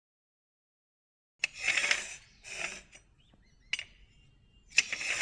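Small hard parts being handled: a sharp click, two short scraping strokes, another click, then a click with a third scrape near the end.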